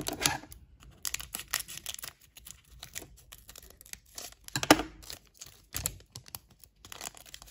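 Foil wrapper of a Wild Card Matte basketball card pack being torn open by hand: crinkling and crackling, with one sharp rip about two-thirds of the way in.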